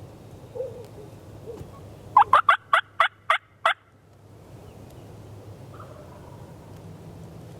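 Turkey calling: a run of seven loud, sharp notes over about a second and a half, packed close at first and then spacing out.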